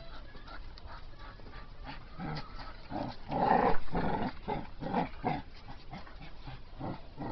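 Staffordshire bull terrier making a run of short, loud vocal sounds, a few a second, while tugging on a rope. The loudest come about three and a half seconds in.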